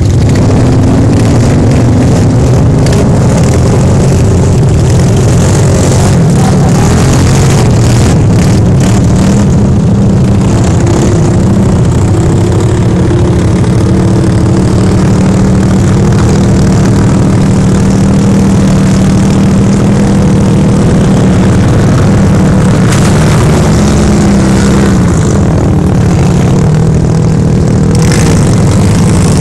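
Side-by-side utility vehicle (UTV) engine running close by, a steady drone whose pitch rises and falls a little as the vehicles are driven through shallow water and mud, with brief stretches of hiss.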